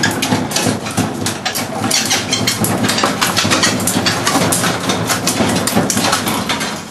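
Continuous loud clattering and rattling, a dense run of rapid knocks and clicks like hard objects being moved or shaken about.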